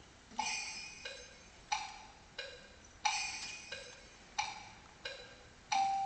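Live ensemble music opening with a struck percussion pulse: sharp, ringing, wood-block-like strikes alternating between a higher and a lower note, about three strikes every two seconds. Held notes from the ensemble come in near the end.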